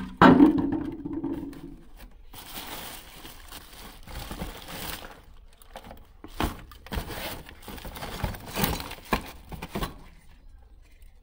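A hollow knock with a short low ring as a large plastic jar is bumped and set down, followed by rustling and crinkling of plastic bags and cardboard as things are rummaged out of a box, with several small clunks and clicks from a power adapter and circuit board being handled.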